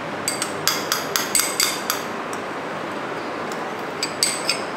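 Spoon tapping and scraping against a glass mixing bowl as mayonnaise is knocked off it into a chicken marinade: a quick run of bright clinking taps in the first two seconds, then a few more near the end.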